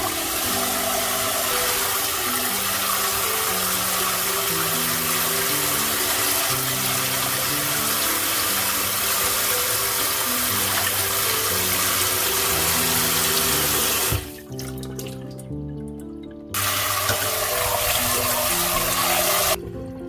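Kitchen tap running full, splashing over hands and over rice cakes and wide glass noodles in a glass bowl as they are rinsed. The flow stops suddenly about two-thirds of the way through, runs again for about three seconds, then stops near the end.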